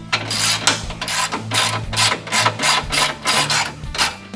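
Hand ratchet wrench clicking in quick, evenly repeated strokes, about four a second, as bolts are backed out of a Polaris RZR rear hub.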